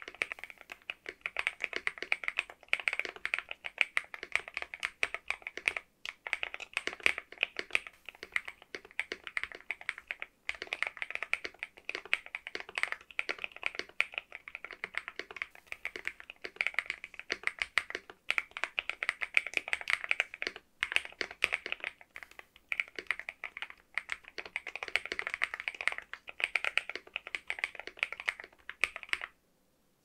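Continuous typing on a Monsgeek M1 mechanical keyboard with stock, factory-lubed KiiBOOM Topaz polycarbonate switches, a polycarbonate plate, lubed stabilizers and XDA-profile keycaps. It is a dense stream of key clicks with a few short pauses, and it stops about a second before the end.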